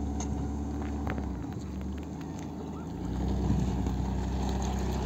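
Mazda Tribute's 3.0-litre V6 engine running while the car drives, a steady low hum. The engine note eases off about a second and a half in and pulls up again around three seconds in, with a few faint clicks and rattles over it.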